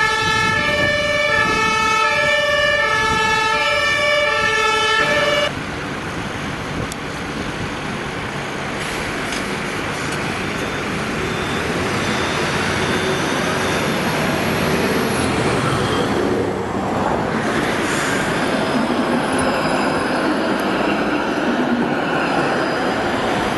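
Fire engine's two-tone siren, alternating between a high and a low note about once a second, stops abruptly about five seconds in. It gives way to slow-moving lorry traffic: diesel engines running, with one engine note rising near the end.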